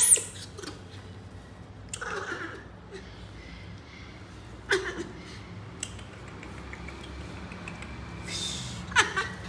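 Baby monkeys fussing while being held, with soft scuffling and faint vocal sounds. A short, very high squeal comes right at the start, and a sharp knock about halfway through.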